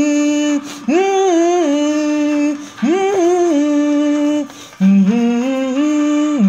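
A voice singing a short tune of four long, drawn-out phrases, each starting with an upward slide in pitch.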